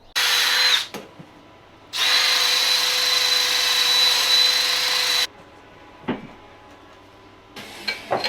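Electric welder firing a short tack of under a second, then running a bead of about three seconds with a steady hiss, while a bracket is welded onto a motorcycle frame. A single click follows, then a few light taps near the end.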